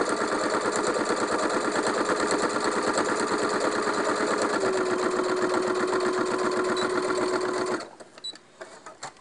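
Electric sewing machine stitching a seam along a zipper, running steadily with a fast even needle rhythm over its motor hum, whose pitch dips slightly about halfway through. It stops abruptly near the end, followed by a few faint clicks.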